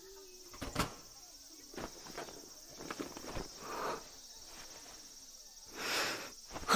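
A boy sniffing a shirt pressed to his face: a few soft clicks and cloth rustles, then two breathy sniffs, the second one longer and louder near the end.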